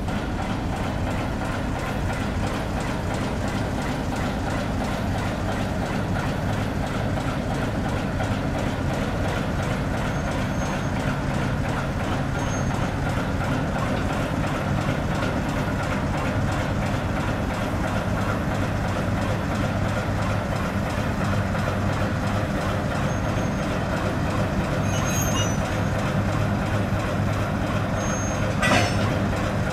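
Diesel shunting locomotive's engine running steadily as it moves slowly up to the turntable, with a few short high squeaks and a single metallic clank near the end.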